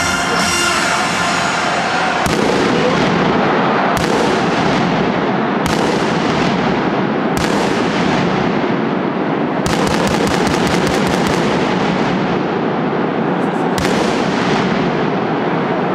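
Stadium pyrotechnics under a dome: about six sudden blasts, mostly about a second and a half to two seconds apart, each trailing off into the hiss of spark fountains, over a continuous loud echoing roar. Music plays in the first two seconds, then drops out under the pyrotechnics.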